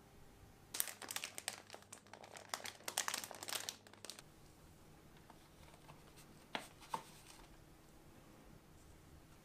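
Plastic packaging of store-bought roll cake crinkling as it is handled and opened, a dense run of crackles lasting about three seconds. About two seconds later come two short clicks.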